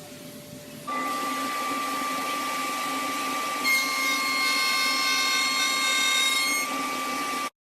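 Woodworking power tool running with a steady high whine. About a second in it gets louder, extra high whining tones join it for a few seconds in the middle, and it cuts off suddenly near the end.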